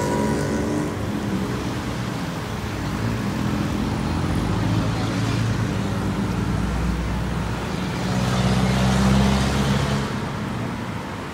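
Steady road traffic noise from a busy multi-lane street below: many car and motorbike engines running and tyres on the road. It swells louder about eight seconds in, as a vehicle passes close.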